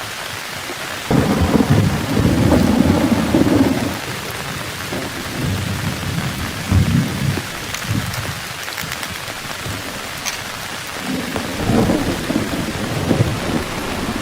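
Heavy rain falling steadily with rolling thunder. A low rumble starts suddenly about a second in and lasts a few seconds, a smaller one follows midway, and another builds near the end.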